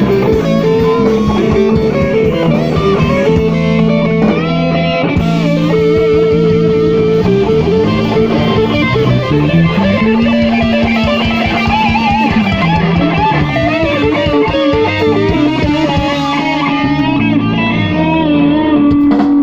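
Live blues band playing an instrumental passage: electric guitar leading with long, bending notes over bass and a drum kit.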